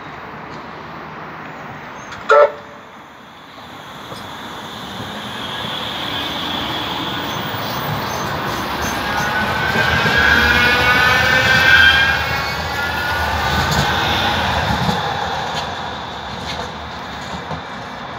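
A Metrolink M5000 tram gives one short toot about two seconds in. It then approaches and passes close by: its wheels rumble on the rails and its traction motors whine in several tones, loudest as it goes past, then fade away.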